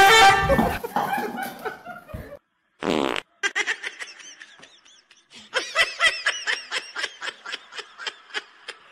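A loud cry at the start, falling in pitch, then a short buzzy blast about three seconds in, followed by a person laughing in a run of quick bursts, about three a second.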